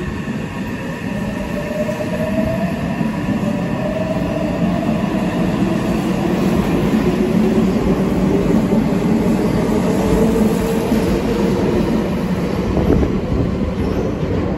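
Meitetsu 2200 series electric multiple unit pulling out and accelerating past at close range: a loud, building rumble of wheels on rail with the traction motors' whine rising in pitch as it gathers speed, and a sharp click near the end.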